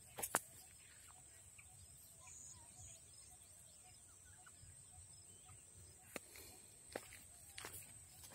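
Faint outdoor field ambience: a steady thin high tone, a few faint short bird-like chirps, and several sharp clicks, one just after the start and three more in the last couple of seconds.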